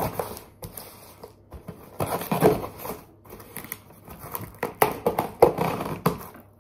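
Scissors cutting and snipping through the packing tape on a cardboard box, in several short bursts with sharp snips.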